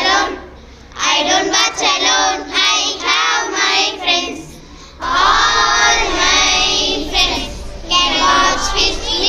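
A group of young girls singing together in unison, with two short pauses.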